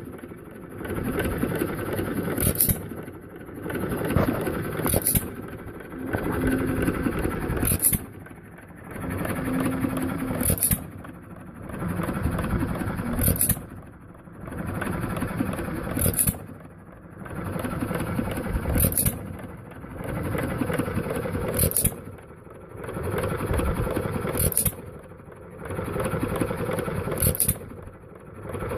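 1929 John Deere Type E 1½ hp hit-and-miss gas engine running through its hit-and-miss cycle: the mechanical noise swells and fades about every three seconds, and each cycle ends in a sharp crack, about ten times in all.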